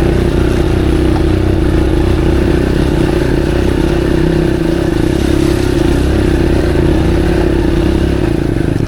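Motorcycle engine running at a steady, held speed with an unchanging note while the bike is ridden slowly over a slippery dirt track.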